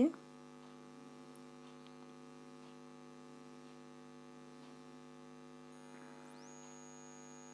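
Faint, steady electrical mains hum with several overtones. About six seconds in, a faint high tone rises and then holds.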